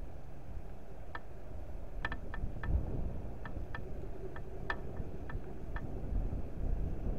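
Wind buffeting the microphone, with about a dozen short, sharp high ticks or chirps scattered irregularly through the middle.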